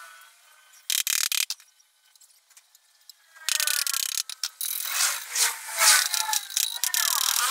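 Small corded power tool cutting laminated melamine board: a short burst about a second in, a pause, then a longer run with a wavering pitch from about halfway through.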